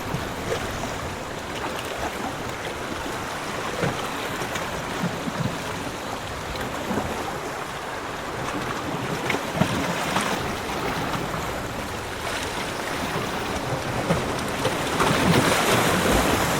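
Sea waves washing on a beach: a steady rush of surf with small splashes, swelling louder near the end.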